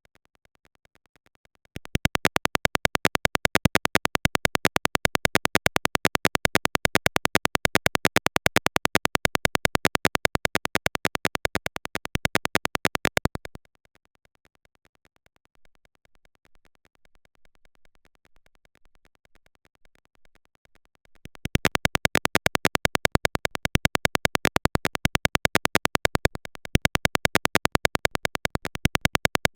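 Simulated siren tone from a piezo buzzer in a Tinkercad Arduino circuit: a rapid, even stream of short electronic buzzing pulses. It starts about two seconds in, breaks off at about thirteen seconds, and starts again at about twenty-one seconds.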